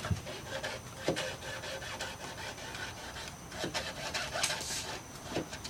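Handsaw cutting through wet wood in uneven rasping strokes.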